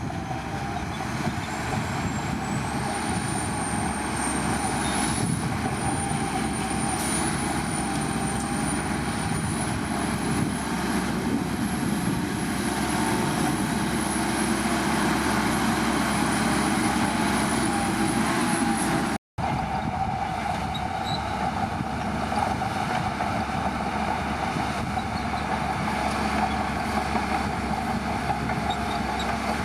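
Shantui bulldozer's diesel engine working steadily, with a thin high whine that slowly climbs in pitch over its first half. The sound drops out for an instant about two-thirds through.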